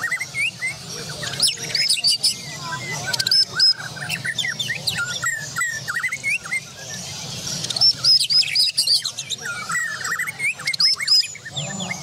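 White-rumped shamas (murai batu, Borneo type) singing vigorously: a fast, varied stream of whistles and sharp chirps with hardly a break. A steady low hum lies beneath.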